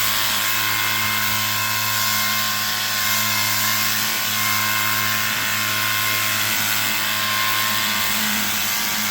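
Pressure washer running steadily, its pump humming under the hiss of the high-pressure water spray as it cleans a mini split outdoor unit's coil.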